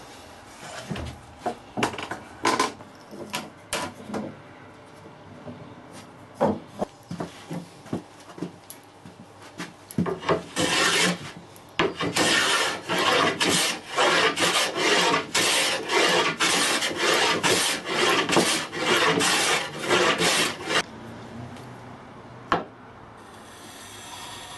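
Wood being worked by hand with quick, rhythmic back-and-forth strokes, about two or three a second, for some ten seconds in the middle. Before it come scattered knocks and taps of wood, and one more knock follows near the end.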